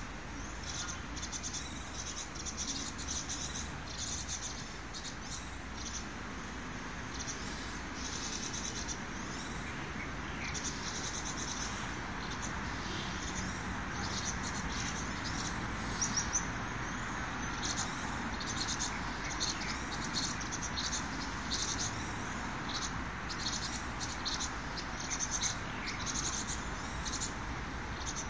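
Outdoor park ambience: many short, high chirps coming irregularly throughout, over a steady background hum.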